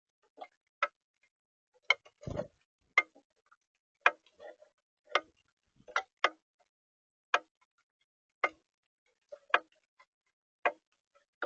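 Water drops falling on the bird-feeder camera or feeder during rain, heard as sharp, irregular taps about once a second. There is one duller thump a little over two seconds in.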